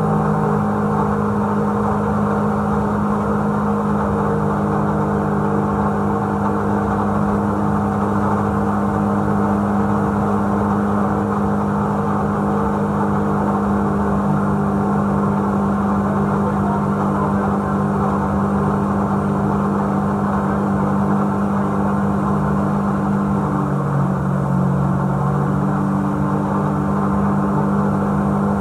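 250-horsepower BRP Rotax jet-boat engine running steadily at speed, with water rushing along the hull. The engine note shifts briefly about 24 seconds in, then settles again.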